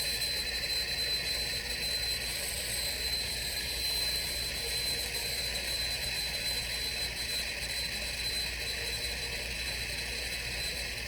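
Turbo torch flame burning with a steady rushing hiss while heating a pipe joint for soldering.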